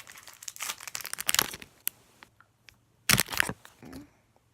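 Plastic candy-bar wrapper of a Twix being torn open and crinkled, with a louder crackle a little after three seconds in.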